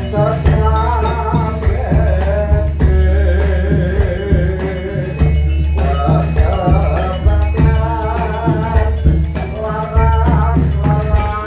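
Javanese gamelan music accompanying a jathilan (kuda lumping) dance: a singer's voice wavering over steady drum and gong percussion, loud and continuous.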